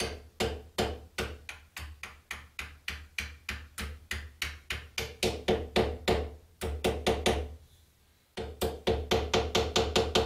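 Small steel hammer tapping the butt end of a knife's wooden handle, where the threaded tang protrudes, to seat the handle. The light knocks ring and come a few a second. They pause briefly about three-quarters of the way through, then resume faster.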